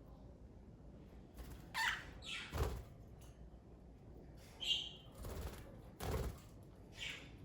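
Pet budgerigars giving a handful of short, scattered chirps, mixed with a few soft thumps.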